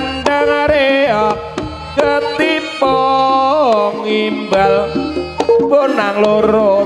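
Live jaranan ensemble music: hand-drum strokes under a loud, sustained melody line that bends and slides between notes, over steady held tones.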